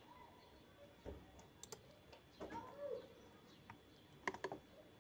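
Faint, scattered computer mouse clicks and keyboard keystrokes, with a couple of sharper clicks close together near the end.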